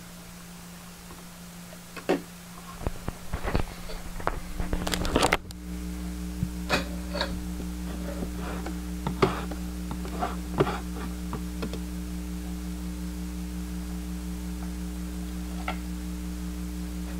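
Scattered clicks and knocks, densest for a few seconds, then about five seconds in a steady low hum with several constant tones starts and keeps going, with occasional clicks over it.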